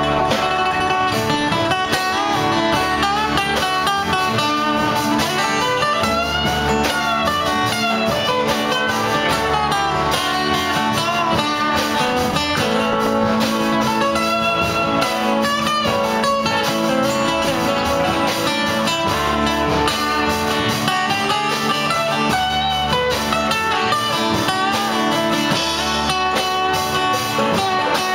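Live acoustic string band playing: several acoustic guitars strummed and picked, with banjo and upright bass underneath, at a steady, unbroken level.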